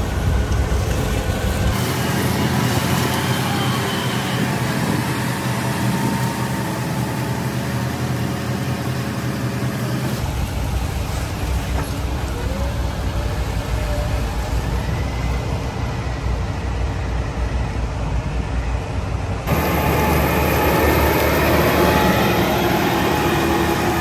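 Claas Xerion tracked tractor running steadily under load, pulling a Horsch disc tillage implement through corn stubble, its engine noise mixed with the rush of the discs and tracks through soil and stalks. The sound changes abruptly about two, ten and nineteen seconds in.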